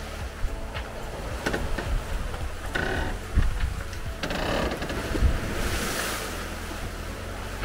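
Wind buffeting the microphone over the rush and wash of sea water along the hull of a Lagoon 46 sailing catamaran under way.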